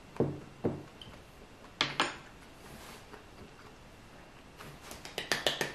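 A ceramic rice bowl and chopsticks set down on a wooden tray: a few light knocks in the first two seconds. A quick run of sharp taps starts near the end.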